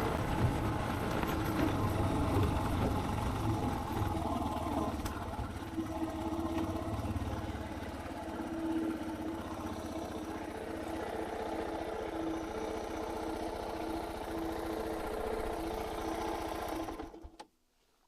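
Suzuki DR650's single-cylinder four-stroke engine running as the motorcycle is ridden, heavier for the first several seconds and then settling to a steadier note. The sound cuts off abruptly near the end.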